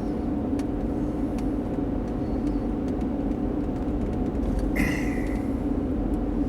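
Steady engine and road noise of a car being driven, heard from inside the cabin, with a brief high-pitched sound about five seconds in.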